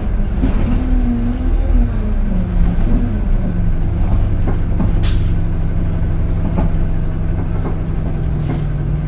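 Bus engine heard from inside the passenger saloon, its note dropping over the first three seconds and then settling to a steady idle. There is a short hiss of air about five seconds in and a few light rattles and knocks.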